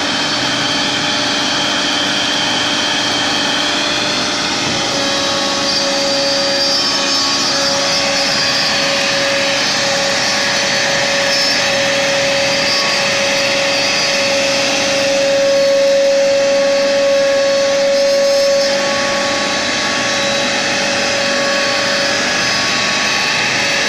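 CNC router spindle carving a relief pattern into a board, running with a steady whine over the rush of its dust-collection blower. A stronger tone comes in about five seconds in, and the machine grows a little louder for a few seconds past the middle as the bit works the design.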